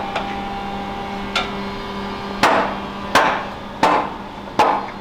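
Five sharp blows struck on something hard, each ringing briefly. The first stands alone; the last four come about one every 0.7 s. A steady low hum runs underneath.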